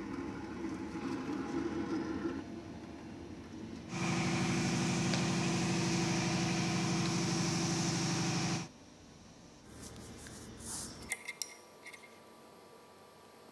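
A machine running with a steady low hum for about five seconds in the middle, cutting off abruptly, between stretches of quieter workshop noise; a few light metallic clinks near the end.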